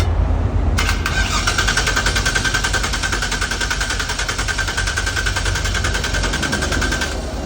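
A start attempt on a GM engine that won't start: a fast, even mechanical chattering with a high whine, starting about a second in and stopping near the end, without the engine catching. A low steady rumble of traffic runs underneath.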